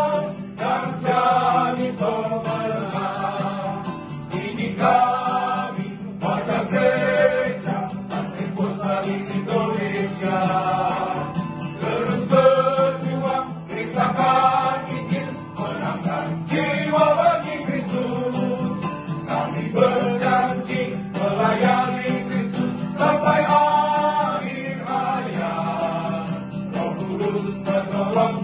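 Small mixed choir singing a church song together, accompanied by a strummed acoustic guitar.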